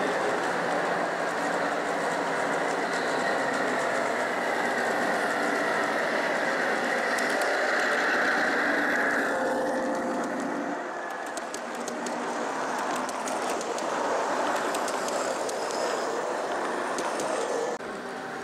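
Gauge 1 (1:32 scale) model train running on the layout: a steady train sound that eases off about ten seconds in, with light rapid clicking in the second half.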